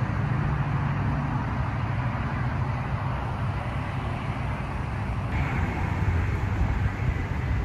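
Steady low outdoor rumble with no distinct events, the kind of noise a phone microphone picks up outdoors near roads and parking lots.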